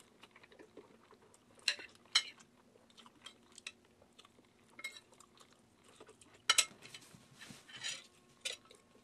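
Metal spoon clinking and scraping against a ceramic bowl of scrambled eggs as bites are scooped up. There are a few sharp clinks, about 1.7 and 2.2 seconds in, and the loudest about six and a half seconds in.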